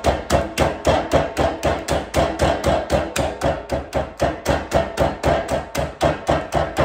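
Bag of pecans being pounded on a kitchen countertop to crush the nuts by hand: rapid, even blows, about four a second.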